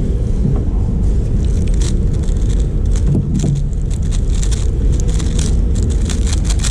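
Rapid, dense clicking of a speedcube being turned fast during a solve, over a loud steady low rumble.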